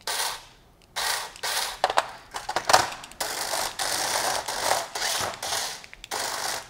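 Hexbug BattleBots remote-control toy robot driving on its plastic arena floor, its small geared motors whirring with a clicky rattle. There is a short burst, a pause of under a second, then longer runs with brief breaks.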